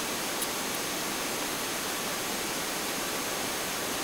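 Steady hiss of a police helicopter's intercom audio feed, with a thin high whistle and no voices.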